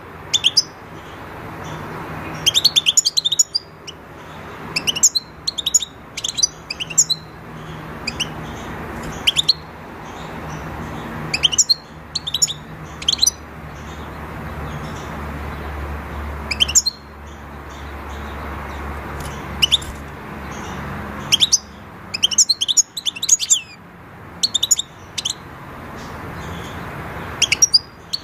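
European goldfinch twittering: short bursts of quick, high chirps every one to three seconds, over a steady low background noise.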